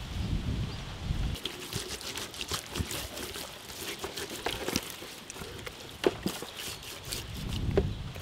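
Hands rubbing and pressing seasoning into raw mutton pieces on a steel tray, giving scattered wet slaps, taps and small clicks, a few sharper ones near the end. A low rumble, likely wind on the microphone, stops about a second in.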